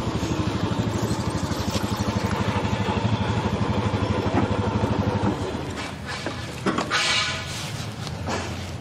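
Small motorbike engine running under way, its rapid firing pulses plain, easing off about five and a half seconds in. A brief higher-pitched sound comes about seven seconds in.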